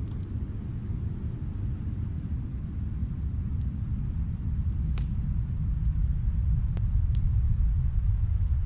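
Fireplace crackling: a few sharp, scattered pops, the loudest about five seconds in, over a steady low rumble that swells slightly toward the end.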